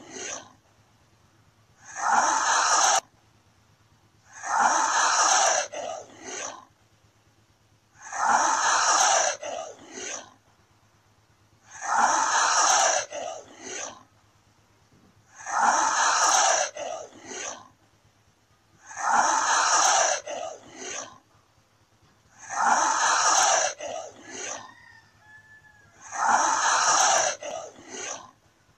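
Komodo dragon hissing, the same call repeated about every three and a half seconds: each time a loud hiss lasting about a second, followed by two shorter, softer ones.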